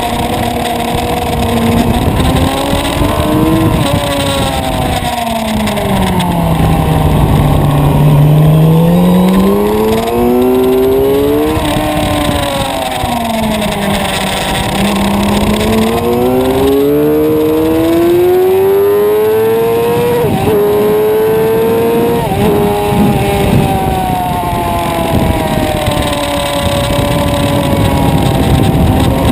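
Suzuki sport motorcycle engine heard from on board at track speed, its note sweeping down as the rider slows and rising again as he accelerates, twice over. In the second half it climbs with brief sharp dips at gear changes, then holds a high steady note.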